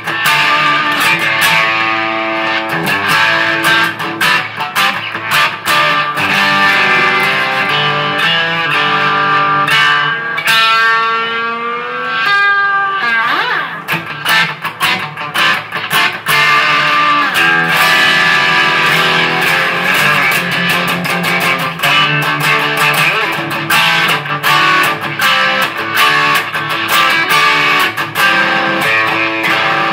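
Electric guitar played solo, a continuous run of picked notes and chords. About ten seconds in come a few seconds of bent, wavering notes.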